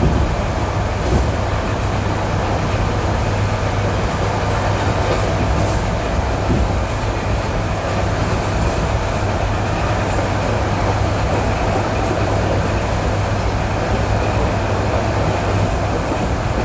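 ED9E electric multiple-unit train running along jointed track, heard from aboard: a steady rumble of the running gear and wheels on the rails with a faint steady whine, and now and then a light click of wheels over a rail joint.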